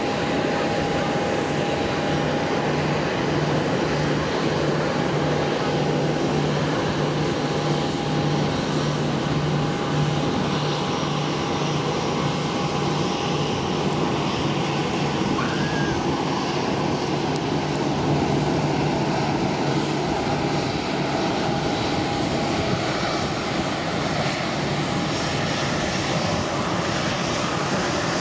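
Jet engines of an Airbus A321, CFM56 turbofans, on final approach and landing: a loud, steady rushing noise. Early on a thin steady whine and a low hum ride on top of it, and both fade out about halfway through.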